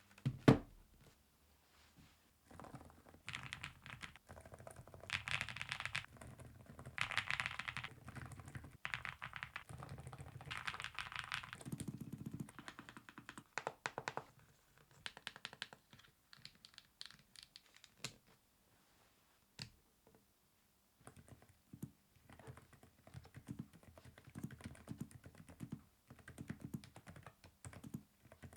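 Typing on a NuPhy low-profile mechanical keyboard with nano switches: runs of quick keystroke clacks with short pauses, and a near-gap about two-thirds of the way through. A sharp knock comes about half a second in.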